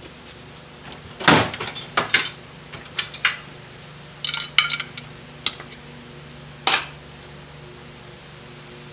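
Small metal parts clinking and clattering as they are handled and set down: pieces of a Chrysler 727 transmission valve body being taken apart. A string of sharp knocks runs from about a second in to near seven seconds, the loudest near the start and the last one, over a low steady hum.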